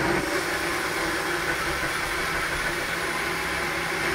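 Small countertop blender running steadily, its motor puréeing a thick lentil and cream soup.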